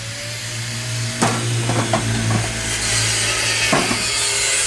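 Welding-shop work: a steady electrical hum under a hissing, crackling noise, with a handful of sharp metallic knocks about a second in and again near the end.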